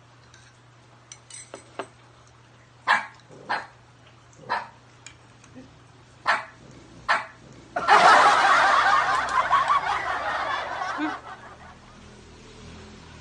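Dog barking sound effect added in editing: five short barks, then a louder continuous stretch lasting about three seconds. Faint clinks of cutlery on plates come before it.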